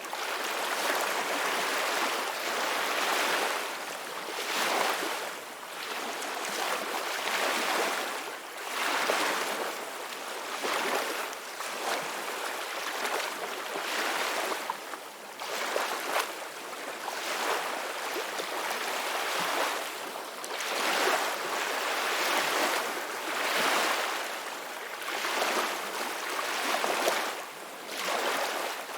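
Ocean waves breaking and washing on a shore, a continuous hiss that swells and eases every couple of seconds.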